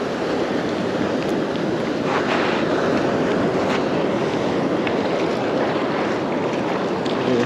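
Steady wash of breaking surf and foamy shallow water, with wind buffeting the microphone.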